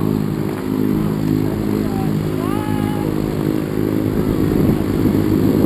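Aircraft engine running at a steady pitch, a constant low hum.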